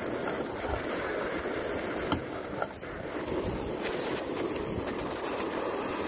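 Gusty wind buffeting the microphone over a canister gas camping stove burning under a pot, with a sharp metal click about two seconds in.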